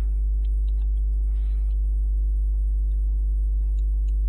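Steady low electrical hum, with a few faint computer-keyboard key clicks as a short line of code is typed.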